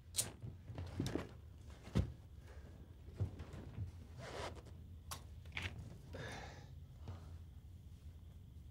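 Metal handcuffs being handled on a wrist: faint scattered clicks and chain rattles, with two short rasping sounds about four and six seconds in.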